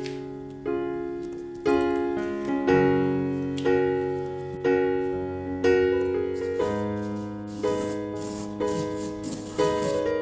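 Background piano music: gentle chords struck about once a second, each note ringing and fading before the next.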